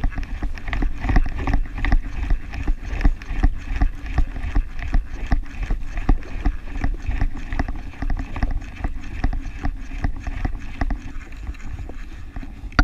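Wind rumbling on the microphone over choppy water, with an irregular run of sharp clicks and knocks as an overhead jigging reel is cranked and the rod is worked to jig a lure up from the bottom.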